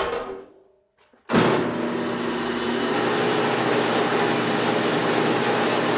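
Thickness planer running with no board in it, its 5-horsepower motor driving the cutterhead through belts: a steady whirring hum that starts abruptly about a second in. It is a test run to check the pulleys don't rub on the new belt guard.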